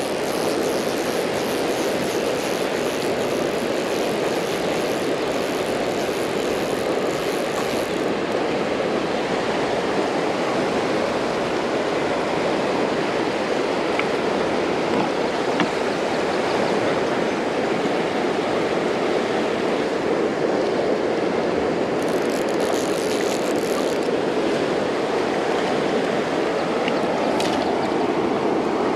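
Steady rush of a shallow, fast-flowing river running over a rocky bed.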